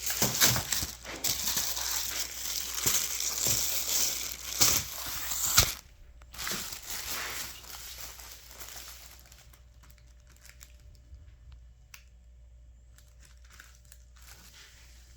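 Crinkling and crumpling of a sheet being handled, loud and dense for about the first six seconds, then dropping to scattered faint rustles and clicks.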